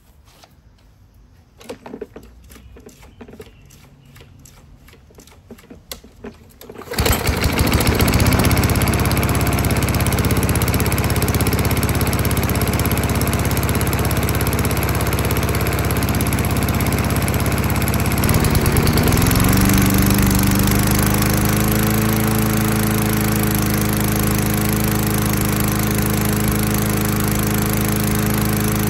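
A 4 hp Tecumseh engine on an old Mastercraft push mower starts about seven seconds in, after a few faint clicks, following a shot of starting fluid into the intake. It runs steadily; about eighteen seconds in its pitch rises and settles at a higher steady speed.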